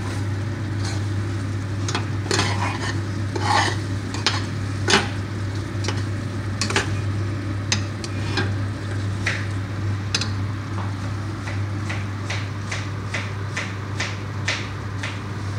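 A spoon stirring a pot of spinach and chicken stew, with irregular clinks and scrapes against the pot as coconut powder is mixed in. A steady low hum runs underneath.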